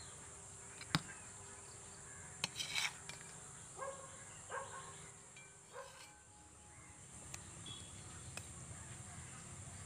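Metal spoon clinking and scraping against a stainless steel pot a few times while scooping out squid roast, faint, over a steady high insect drone.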